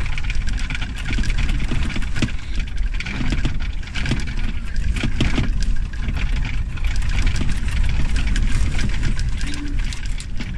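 Cabin noise of a pickup truck driving over a rough, rutted desert dirt track: a steady low rumble of tyres and engine with constant rattling and knocking as the vehicle shakes on the bumps.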